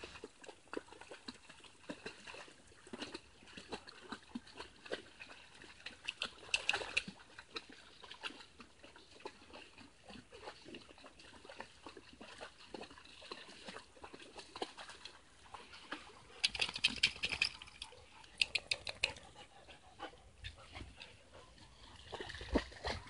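Dogs playing in a shallow stream: a faint steady trickle of water with splashing and paw steps throughout, and two short bouts of dog vocalizing, about a third of the way in and again about three-quarters in.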